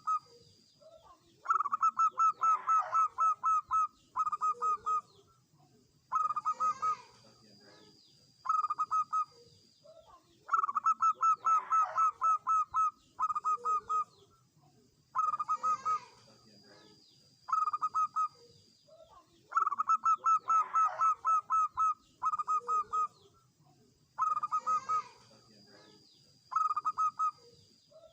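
Zebra dove singing its staccato cooing song: phrases of rapid, clipped coos repeated every four to five seconds, some phrases longer than others. A faint steady high whine sounds in the gaps between phrases.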